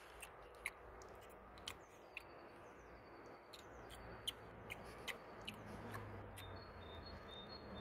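Faint outdoor quiet: soft clicks and rustles of a plastic toy horse being moved through grass, and a bird's short, high, repeated chirps near the end.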